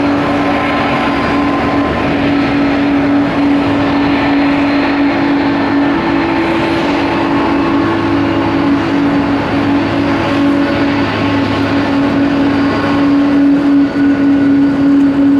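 Boeing jet airliner's engines running steadily: a constant low hum with a higher turbine whine over a wash of engine noise.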